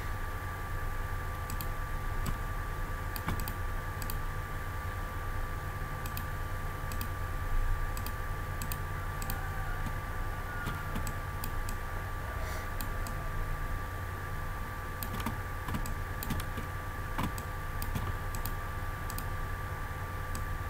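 Irregular, scattered clicks of a computer keyboard and mouse being used at a desk, over a steady background hum.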